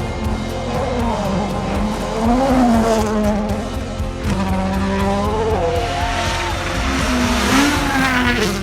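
Race car engine revving, its pitch rising and falling several times, with tyre squeal, over background music with a steady beat.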